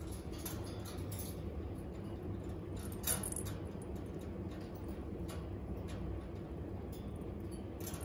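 Scattered small clicks and taps of pet birds moving on wire cages, with the loudest click about three seconds in, over a steady low hum; no whistling or singing.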